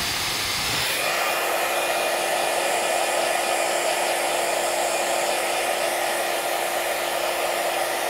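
iTeraCare terahertz wand running, its built-in fan blowing warm air with a steady hair-dryer-like whoosh and a constant hum. The sound grows fuller and louder about a second in and then holds steady.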